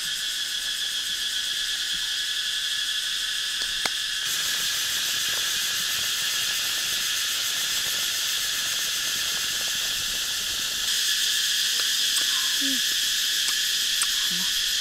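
Continuous high-pitched drone of insects, crickets or cicadas, steady throughout and stepping up a little in loudness about four seconds in and again near eleven seconds.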